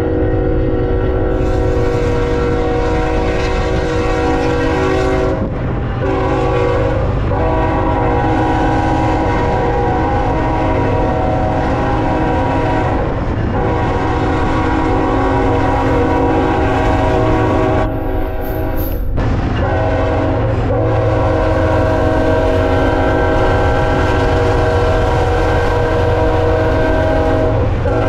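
BNSF freight locomotive's multi-chime air horn sounded in long, nearly unbroken blasts, with a few short breaks, over a heavy steady low rumble of the moving train.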